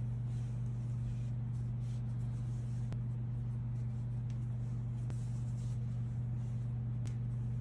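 A steady low hum, with faint crumbly rustling and a few light taps as hands press and squeeze lumps of pastry dough together on a stone countertop.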